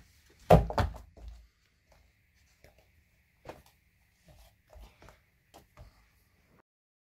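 Thumps and knocks of a person climbing down out of a canopied raised bed: a loud thump about half a second in, then lighter knocks and rustling that stop abruptly near the end.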